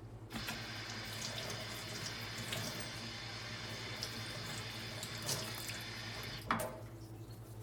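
Tap water running into a sink over a cast iron skillet being rinsed between rounds of scrubbing off rust. The water starts just after the beginning and cuts off about six and a half seconds in with a brief knock.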